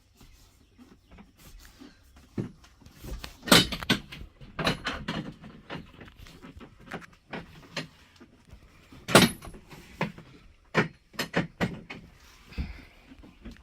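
Irregular knocks and clunks of hand work, with two loud bangs about three and a half and nine seconds in.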